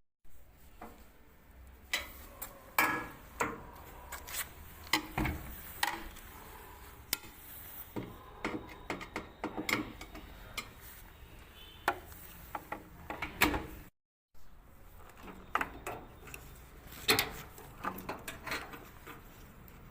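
Irregular clicks, knocks and scrapes of washing-machine parts and hand tools being handled and fitted, with a brief dropout about two-thirds of the way through.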